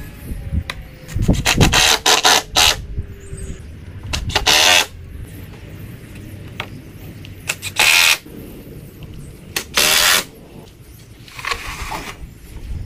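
Cordless drill/driver running in short bursts, driving screws into pallet wood. There is a quick cluster of bursts, then single ones a few seconds apart.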